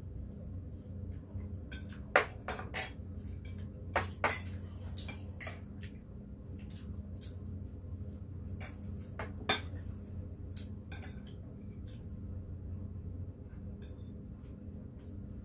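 Metal spoons and chopsticks clinking and tapping against ceramic bowls and plates while eating, in scattered sharp clicks with a few louder knocks about two, four and nine seconds in. A steady low hum runs underneath.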